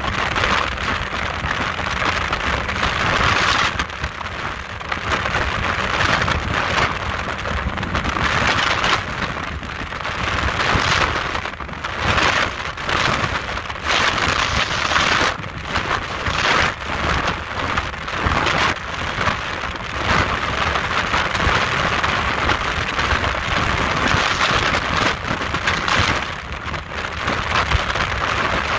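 Speedboat running at high speed: wind rushing past the microphone and water hiss that swell and fade every few seconds, over the steady drone of the engine.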